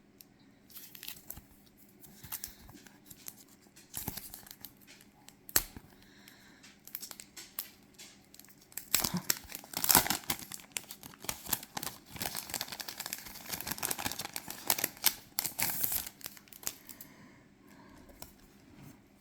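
Crinkling, tearing and rustling of packaging and cards being handled by hand: scattered rustles and clicks at first, then a louder, dense crackling from about nine seconds in that settles down again near the end.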